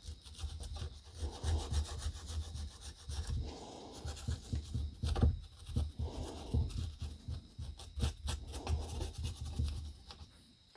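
Brass wire brush scrubbing the inside of a driveshaft U-joint yoke, in spells of rapid back-and-forth strokes with short pauses between them, cleaning dirt out of the snap-ring grooves before new bearing caps go in.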